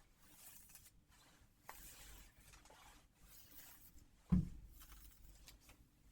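Close-miked ASMR handling sounds: faint, soft rustling, then a single dull low thump about four seconds in.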